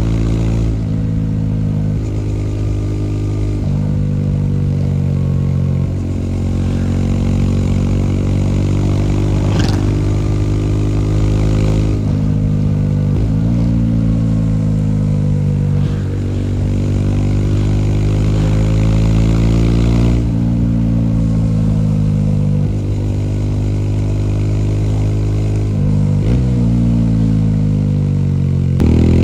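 Bajaj Dominar 400's single-cylinder engine pulling under throttle. Its pitch climbs through each gear and drops back sharply at every shift, about every two to four seconds. A brief sharp click comes about ten seconds in.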